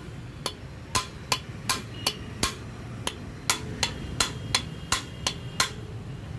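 Hammer tapping the valve stem tops of a Maruti Omni cylinder head: about fourteen sharp metal taps at roughly three a second, with a short pause midway and a brief ring after some of them. The tapping checks that the valve collet locks are seated in their spring retainers.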